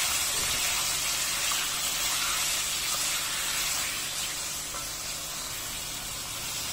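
Raw chicken pieces sizzling in hot oil in a metal kadai as they begin to fry: a steady hiss that eases slightly toward the end.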